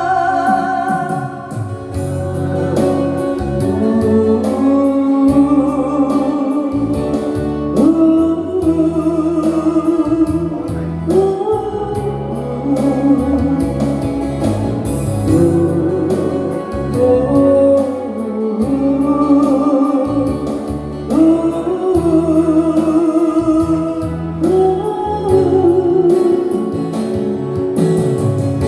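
Instrumental interlude of a Korean pop song: a wavering, vibrato-laden melody over a steady bass line and regular beat. No sung words.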